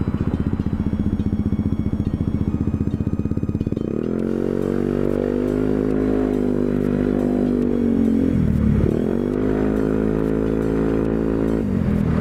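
Yamaha Zuma 125 scooter's single-cylinder four-stroke engine idling with a fast, even pulse. About four seconds in it pulls away and rises to a steady drone. It dips briefly twice as the throttle eases off, once past the middle and again near the end.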